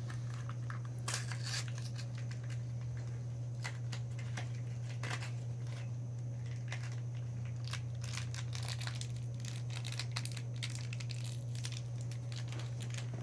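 Plastic Shopkins blind bags being crinkled and torn open by hand: irregular crackling and rustling throughout, with a few sharper tears. A steady low hum runs underneath.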